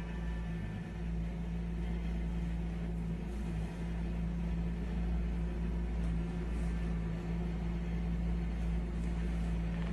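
A steady low hum with a constant tone and a light hiss over it, with a few faint soft taps near the end.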